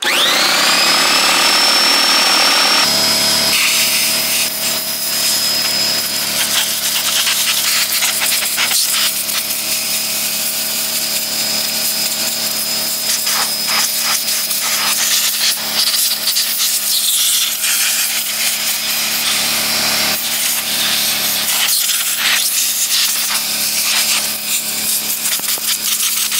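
An air compressor starts with a whine rising over the first second, then runs steadily while compressed air hisses in uneven blasts, blowing sawdust out of a Stihl MS 241 chainsaw's clogged air filter and cover.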